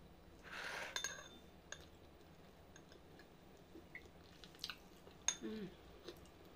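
A metal fork clinking lightly a few times against a ceramic bowl, with soft chewing of boiled egg. A short breathy puff comes about half a second in, and a brief low hum near the end.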